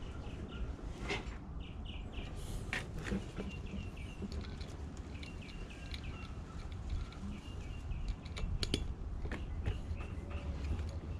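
Small birds chirping in quick series of short high notes, over a steady low background rumble, with scattered sharp clicks and taps.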